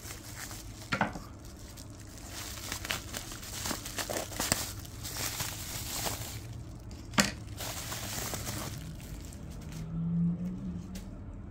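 Plastic bubble wrap being handled and pulled off a boxed tin, crinkling and crackling, with two sharper snaps, about a second in and about seven seconds in.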